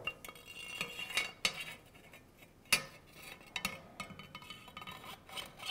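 The Ruger Precision Rifle Gen2's metal handguard being slid over the barrel: light metallic scraping and clinking with some ringing, and a few sharp clicks, the loudest about halfway through and near the end.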